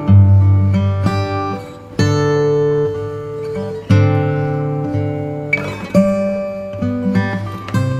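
Background music: acoustic guitar strumming and picking chords, with a new chord struck about every two seconds.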